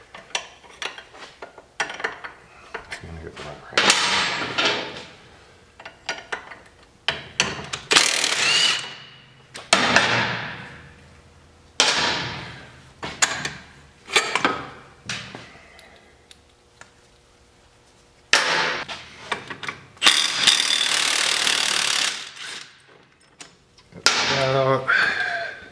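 Milwaukee cordless impact wrench in repeated short bursts, hammering and spinning out the suspension bolts on an ATV's rear hub carrier, with clanks of metal parts between the bursts. The longest burst, about two seconds, comes some three-quarters of the way through.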